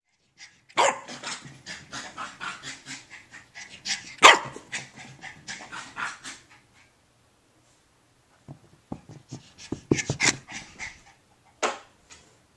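Maltese puppy panting hard in quick breaths during post-bath zoomies, with a few sharp barks, loudest about four seconds in and again near the end. A cluster of quick thuds comes in the second half.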